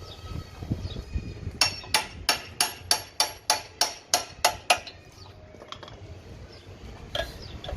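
Hammer blows on metal: about eleven in a steady run of roughly three a second, each with a short ring, then a single further blow near the end.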